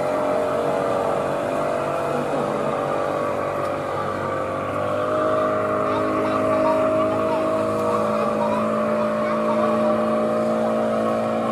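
Speedboat outboard motor running steadily out on the water, a continuous engine drone that shifts pitch slightly about five seconds in.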